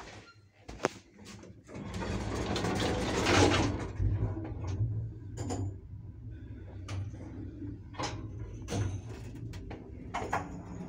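Old Soviet SamLZ passenger lift: a click, then the cabin's sliding doors rumble shut over about two seconds, and the car sets off with the steady low hum of its 4AN-160 hoist motor, with scattered clicks and knocks from the shaft as it travels.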